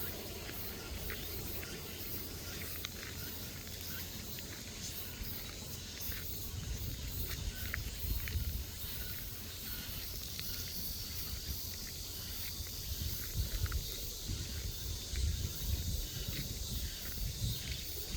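Summer forest ambience: a steady, high insect drone, growing denser about ten seconds in, over a low rumble on the microphone and small scattered clicks.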